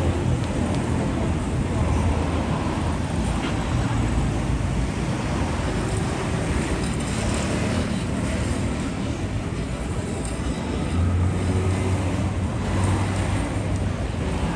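City street ambience: road traffic running by, with a steady low engine hum that swells about two-thirds of the way in.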